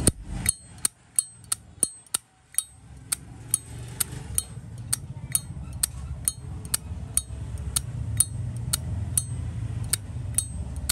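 Zippo lighter lid flicked open and snapped shut again and again: sharp metallic clicks about twice a second, each with a brief bright ring, the cam snapping firmly. A low steady rumble sits in the background from about three seconds in.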